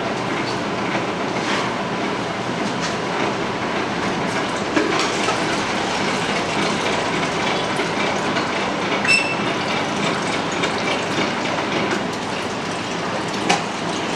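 Soft-serve ice cream machine running in its cleaning mode, a steady mechanical rush, while rinse water is let out through the dispensing valves into a jug. Two sharp clicks, one about nine seconds in and one near the end.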